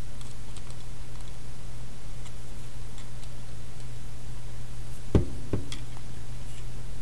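Handling of small electronics parts on a desk: faint light clicks of plastic boards, a breadboard and a clear plastic case, then two low knocks about half a second apart a little past five seconds in as something is set down. A steady low hum runs underneath.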